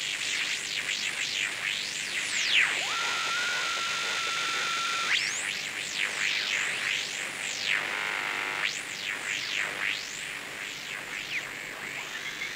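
Twinplex regenerative shortwave receiver with a type 19 twin-triode tube, tuned across the band with its detector oscillating: a run of heterodyne whistles that swoop down and back up as the dial passes one station carrier after another, over a hiss of static. About three seconds in, one whistle holds at a steady pitch for a couple of seconds before shooting up and away.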